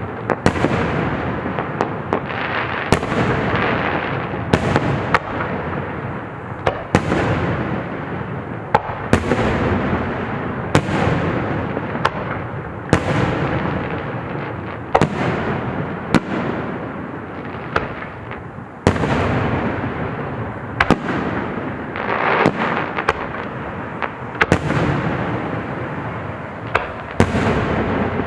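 Aerial fireworks display: shells burst every second or two, each sharp bang trailing off in a long rumbling echo, with steady noise in between and no quiet gaps.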